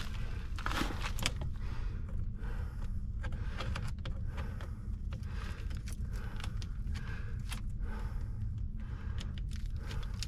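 Scattered light clicks and scrapes of hands handling tools and parts, over a steady low hum.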